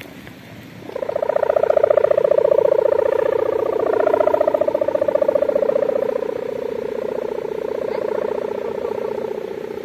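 Kite hummer (sendaren) droning in the wind: a loud buzzing tone that starts about a second in, wavers in pitch and swells, then eases a little and holds steady, with a rough, bulldozer-like growl.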